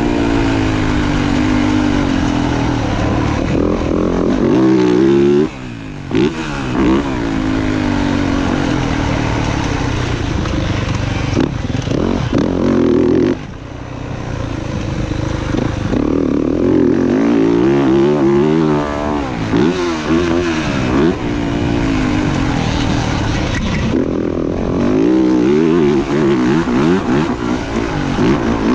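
Motocross dirt bike engine revving up and down, pitch climbing and falling through the gears. The throttle is cut sharply twice, about five and a half and thirteen and a half seconds in, before it picks up again.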